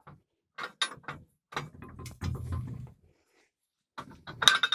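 Steel mandrel being clamped in a blacksmith's wedge-lock forge vise: a run of sharp metal clicks and knocks with a low rumble of handling in the middle, and a louder ringing metal clank near the end.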